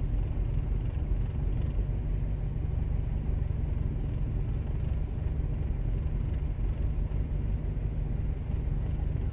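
Toyota Tarago (Previa) van's engine idling, heard from inside the cabin as a steady low rumble.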